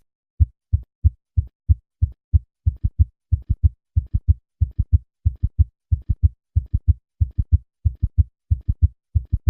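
A patient's heart beating fast with a summation gallop. Short, low thuds come in quick succession and fall into a galloping rhythm. A loud extra sound lies midway between cardiac cycles, where a third and fourth heart sound merge at a heart rate above 90 beats per minute. The beats start about half a second in.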